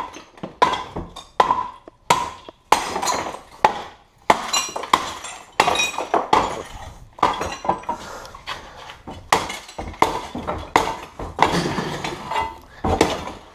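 A tamper pounding broken toilet porcelain down in a bin: repeated crunching blows, one or two a second, with shards clinking and breaking.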